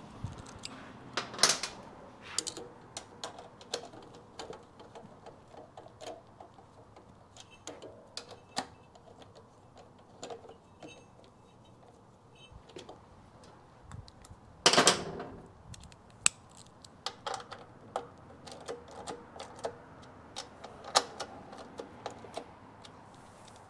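Irregular small clicks, taps and knocks of motorcycle parts and hardware being handled and fitted by hand during assembly. A louder clatter comes about fifteen seconds in.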